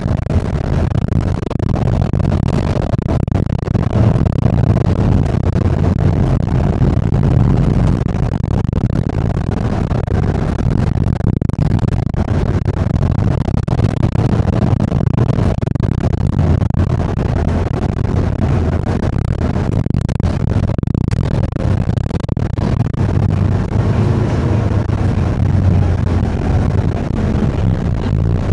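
Singapore city bus under way, heard from on board: a steady low drone of engine and road noise.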